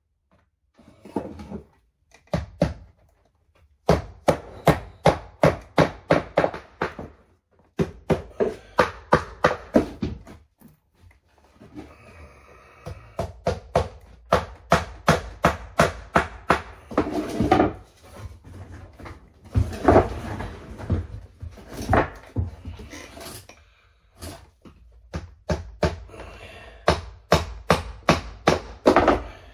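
Hammer driving nails through metal shower pan netting into the shower curb: runs of quick, sharp strikes, about three a second, broken by short pauses.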